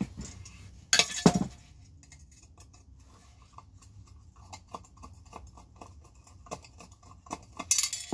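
Small metal parts clinking and rattling against a cast-aluminum light housing as it is taken apart by hand: a loud clatter about a second in, then a run of light ticks, and another clatter near the end.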